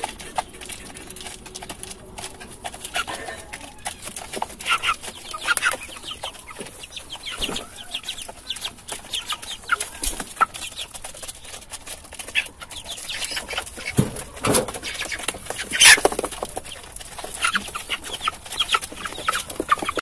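Broiler chickens clucking while they feed, with many quick pecking taps throughout and a few louder knocks in the last third.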